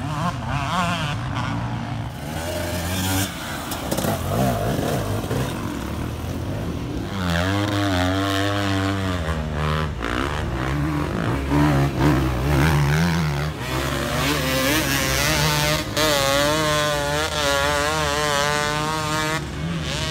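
Enduro dirt bike engines revving hard under load, their pitch rising and falling rapidly with the throttle. The engine note is loudest in one stretch about a third of the way in and in a longer one near the end.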